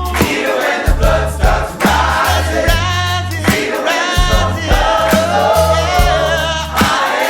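A choir singing a gospel-style worship song with band accompaniment: a steady bass line and a regular beat of drum hits under the voices.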